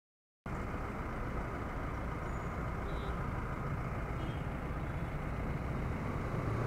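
Steady road-traffic noise at a busy intersection: vehicle engines running and idling. It cuts in abruptly about half a second in.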